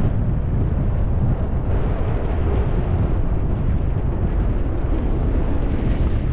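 Wind buffeting the microphone of a body-worn camera at skiing speed, a steady low rumble, with the hiss of skis sliding over packed and chopped snow.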